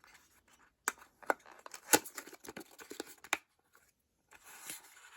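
A small perfume bottle and its packaging being handled by hand: a run of sharp clicks and taps, the loudest about two seconds in, with light rustling between, then a soft hissing rush lasting about a second near the end.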